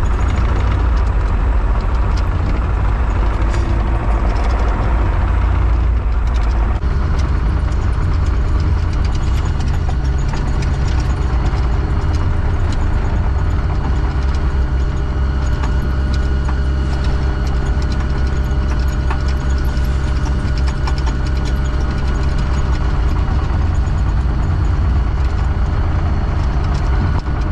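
Heavy construction machine's engine running steadily under load, its note changing about six seconds in.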